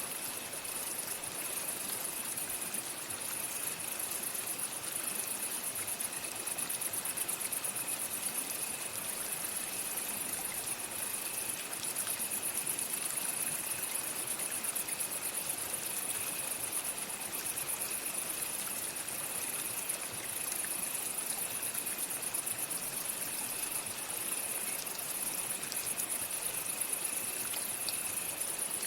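Steady running water of a stream, overlaid by insects chirring in a continuous high, fast-pulsing trill, with a second fainter, lower insect tone.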